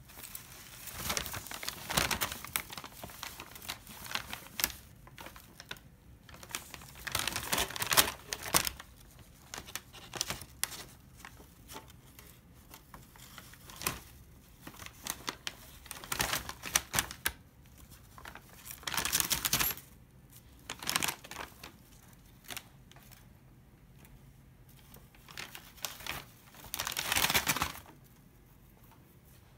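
Brown paper bag crinkling and rustling in irregular bursts, separated by quiet gaps, as a kitten pounces on it, claws it and bites it.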